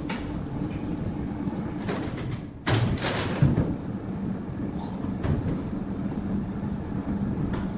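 Heavy sawmill machinery running: a steady low mechanical hum with scattered knocks and clanks, which steps abruptly louder about three seconds in.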